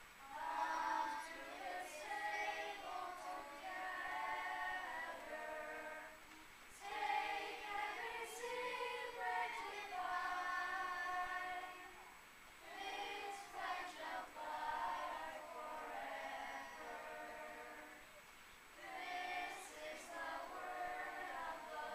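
Children's choir singing together, in sung phrases separated by brief pauses about every six seconds.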